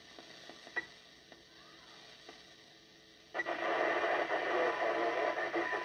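Yaesu FT-102 transceiver receiving 10-metre FM through its speaker: faint hiss and a few small clicks in a gap between transmissions. A little past halfway a station's signal comes in suddenly and loud, with voice-range radio audio.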